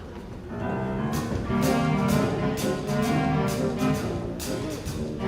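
Musical accompaniment with brass comes in about half a second in, with a steady beat of short percussive hits: the introduction to a show tune.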